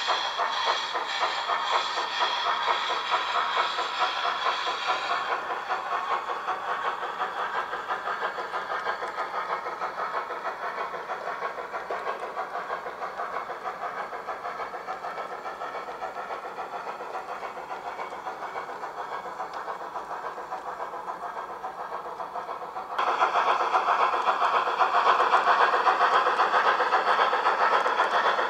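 Garden-railway model of a box-cab steam tram locomotive running, its sound unit giving a quick, even chuffing beat with hiss. The sound jumps abruptly louder about 23 seconds in.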